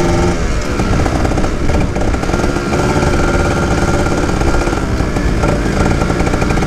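Kawasaki Ninja 150 SE two-stroke single-cylinder motorcycle engine running under way, its revs dropping about half a second in and then rising again.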